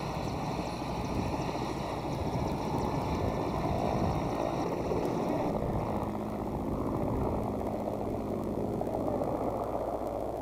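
Mil Mi-8-series helicopter running: a steady low rumble of engines and rotor, with a thin high turbine whine above it that fades about halfway through.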